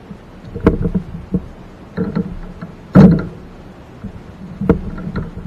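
A series of knocks and bumps as gear is handled against a plastic fishing kayak, about eight in all. The loudest comes about three seconds in.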